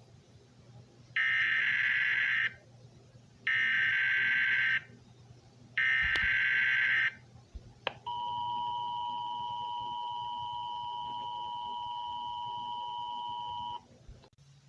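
Emergency Alert System alert opening: three short bursts of screechy digital data tones (the SAME header), then the EAS two-tone attention signal held steady for about six seconds and cut off sharply.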